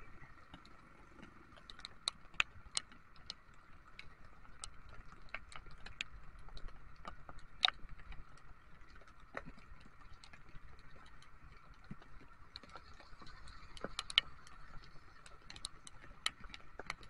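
Raindrops tapping on the camera and the scooter's windscreen while riding in rain: irregular sharp ticks, a few a second, with louder ones now and then, over a steady hiss of rain and road.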